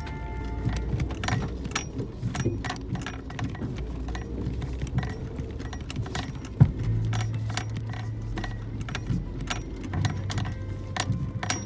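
Suzuki Jimny JB64 on a rough forest road: dense rattling and clicking over a low engine rumble, with one sharp knock a little past the middle followed by a steady low hum for about two seconds.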